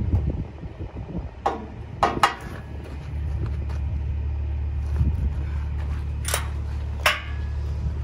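A semi truck's diesel engine idling steadily, with five sharp metallic clanks and clicks from the trailer hitch as the hoses and safety chains are unhooked: three close together a couple of seconds in, and two more near the end.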